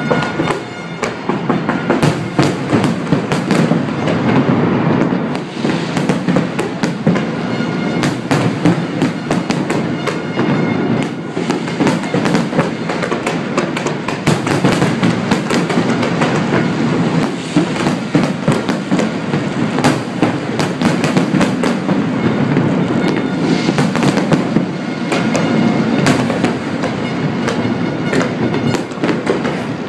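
Fireworks barrage: a dense, continuous run of bangs and crackling, many reports every second, with no let-up.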